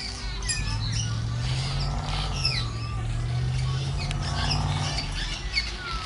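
Swallows twittering: a busy run of quick, high chirps and short downward-sliding squeaks, over a low steady hum.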